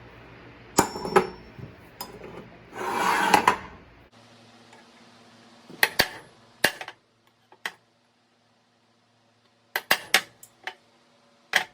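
Metal tools and parts being handled, with separate sharp clinks and knocks and a short scraping rasp about three seconds in.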